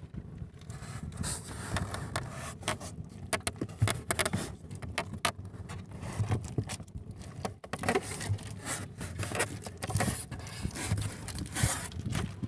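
Irregular scraping, rubbing and clicking of fishing gear and hands moving about in a small boat, over a low steady rumble.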